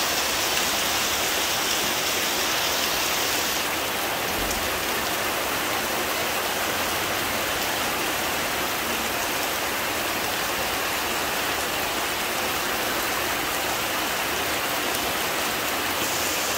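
Heavy monsoon rain pouring steadily, a dense even hiss that softens slightly about four seconds in.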